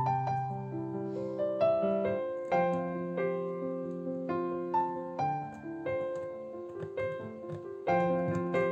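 Slow background piano music: single melody notes over held chords.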